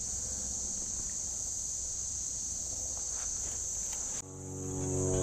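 Insects calling in one steady, unbroken high drone, cut off suddenly about four seconds in by background music.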